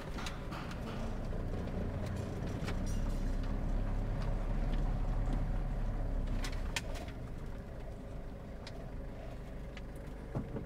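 The 1998 Toyota Toyoace's 3L four-cylinder diesel engine running as the truck drives slowly, heard from inside the cab. The engine grows louder a couple of seconds in and eases off after about seven seconds, with a few light clicks and knocks.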